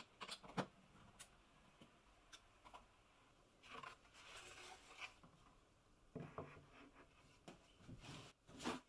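Faint hand-work sounds on plywood: a few light clicks from a hand screwdriver turning a screw, then a board sliding and several light wooden knocks as a plywood jig is handled and set down on a wooden workbench.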